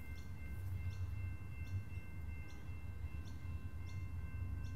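Quiet platform ambience: a steady low rumble with a short high chirp repeating about every 0.8 seconds, over a few faint steady tones.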